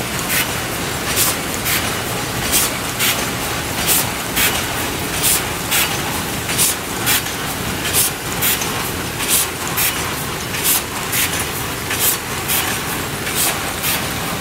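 Automatic paper bag sewing machine line running at speed: a steady mechanical clatter with short, sharp high-pitched strokes in pairs, repeating about every one and a half seconds as each kraft paper bag goes through.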